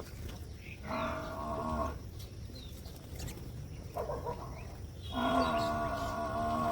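A cow mooing: a call of about a second, a short one a few seconds later, then a longer call near the end, each held at a steady pitch.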